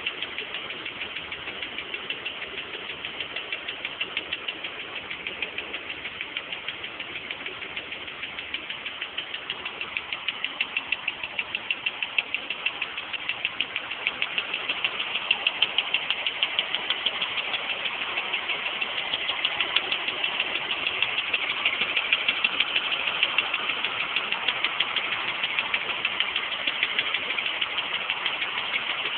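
BMW M20B20 2.0-litre straight-six idling cold, with a loud, fast, regular ticking over the engine's running. The ticking grows louder about halfway through and stays loud.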